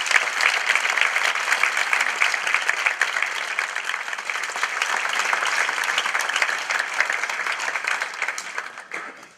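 An audience applauding: dense, steady clapping that dies away shortly before the end.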